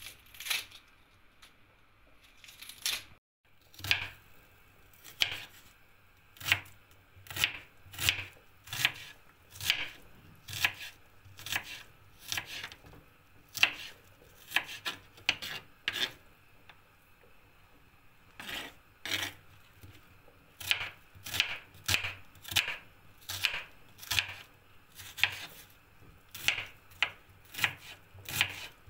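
Kitchen knife chopping an onion on a plastic cutting board: a sharp knock with each stroke, about two a second, with a pause of a couple of seconds about halfway through.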